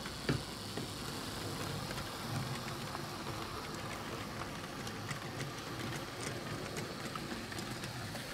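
Model train running on its track: a steady whir with faint, irregular clicks from the wheels on the rails.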